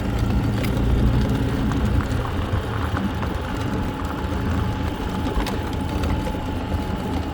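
A motor vehicle's engine running steadily: a low, even drone with a faint steady tone above it.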